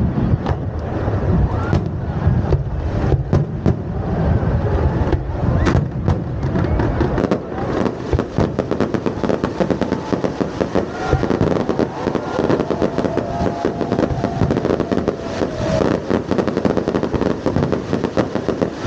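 Fireworks going off in a dense run of bangs and crackles, with people's voices underneath.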